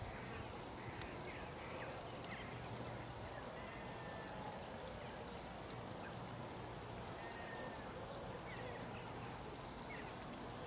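Quiet outdoor ambience: a steady low hiss and hum with faint, scattered bird chirps.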